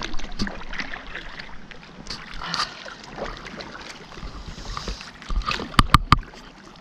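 Paddle strokes splashing in calm river water as a small boat is paddled along, with three sharp knocks in quick succession near the end.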